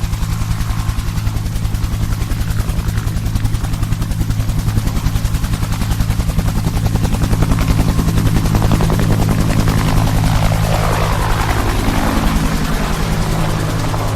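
Helicopter sound effect: a fast, even rotor beat over a steady engine hum. It swells a little louder about two-thirds of the way through, then eases off slightly.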